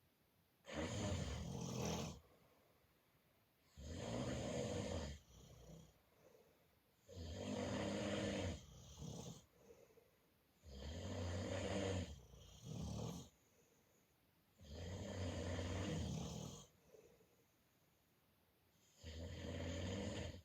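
A sleeping person snoring: six snores coming about every three and a half to four seconds, each lasting over a second, with quiet between them and a short softer breath after some.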